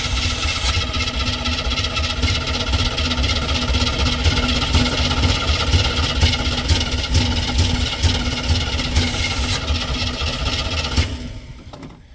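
A square-body truck's carbureted engine being cranked on the starter, a long steady cranking run that dies away near the end without settling into an idle. The carburettor's float needle is stuck and the engine is flooded.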